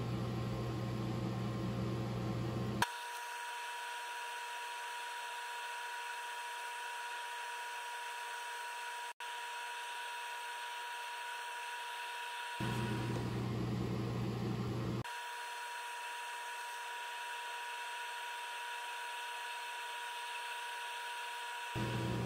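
Wood lathe running steadily with a motor whine while the turned African Blackwood stopper is hand-sanded. The deep part of the hum cuts out abruptly a few seconds in and comes back twice briefly later on, with a short dropout about nine seconds in.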